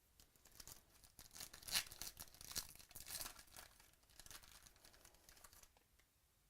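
Trading-card pack wrapping being torn open and crinkled: a run of crackling tears that starts just after the beginning and stops about six seconds in, loudest around two seconds in.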